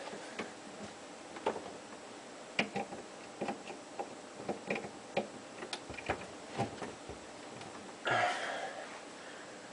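Scattered light clicks and taps of parts and hand tools being handled while the power cord is connected to a garbage disposal under a sink, with a short rustle near the end.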